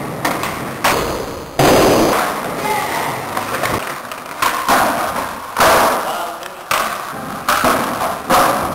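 Skateboards rolling, popping and landing on a concrete floor: a quick series of sharp cracks and thuds, about one or two a second, each ringing out in a large echoing hall.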